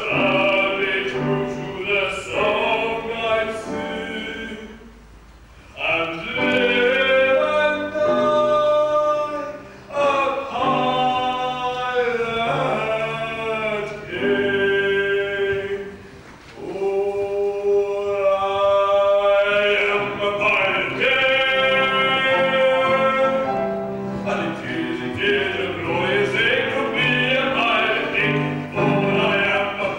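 A man singing a solo in light-operatic style, with piano accompaniment. The sung phrases break off briefly about five, ten and sixteen seconds in.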